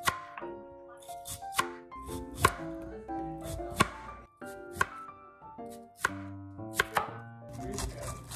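Kitchen knife slicing through a daikon radish and knocking on a wooden cutting board, one sharp cut about every second, over light background music.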